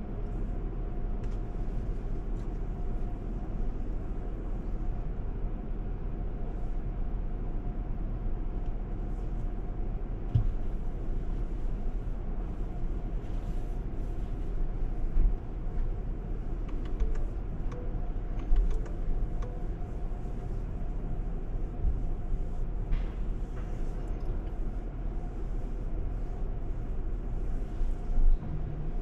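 Automatic tunnel car wash heard from inside the car's cabin: a steady, muffled low rumble of the wash machinery and water hitting the car, with a faint steady whine and occasional knocks.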